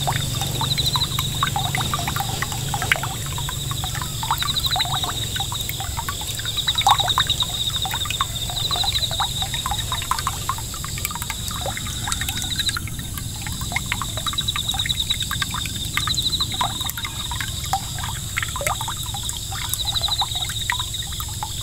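Water jet from a small 5 V solar fountain pump splashing and trickling back onto a pond surface in a steady patter of drops. A high trilling call repeats about every two seconds behind it.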